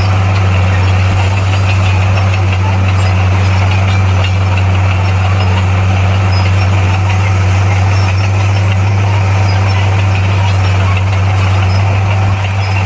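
Bulldozer's diesel engine running steadily under load, a deep even drone with a rough mechanical rattle over it.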